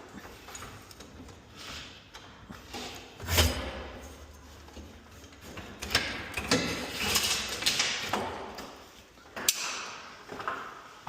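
Irregular metal knocks and clanks with some scraping and rattling from work on garage door hardware, the loudest a heavy thump about three and a half seconds in.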